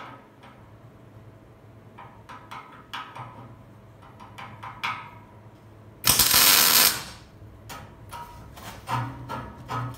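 A MIG welding torch laying one short tack weld on a steel tube handrail, a loud, even arc hiss that starts sharply about six seconds in and stops after about a second. Light metallic clicks and taps come before and after it.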